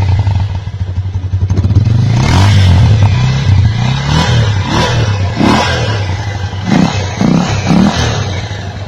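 Bajaj Pulsar 150 single-cylinder four-stroke engine idling and being revved, first in one longer rise and then in several short throttle blips. A part of its air-filter intake has been removed to change the exhaust note.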